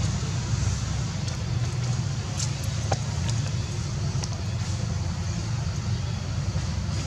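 Steady low outdoor rumble with an even background hiss, and a few faint high ticks scattered through it.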